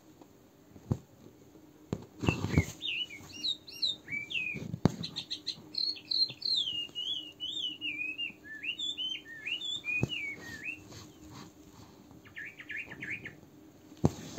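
A small songbird sings a varied warbling song of quick rising and falling whistled notes, ending with a short rapid trill near the end. A soft thump about two seconds in and a few faint ticks come from the handling of the work.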